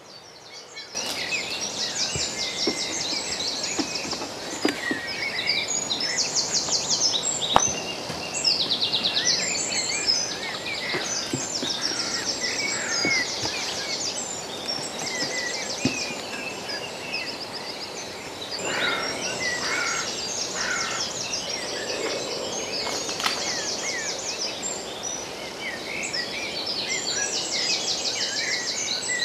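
Dawn chorus: many songbirds singing at once, dense overlapping trills and chirps that go on throughout, with a couple of faint knocks.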